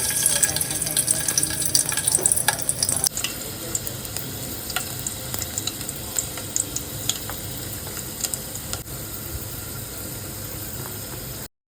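Food sizzling in hot oil in a pan while a spatula stirs it, with small scraping clicks. It is loudest for the first three seconds, then settles to a steadier sizzle, and cuts off suddenly near the end.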